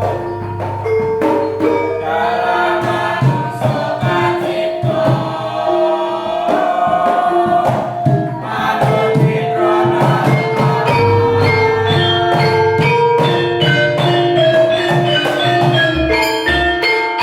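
Javanese gamelan ensemble playing: bronze metallophones strike ringing notes in a running melody over deep gong tones, with a choir singing along.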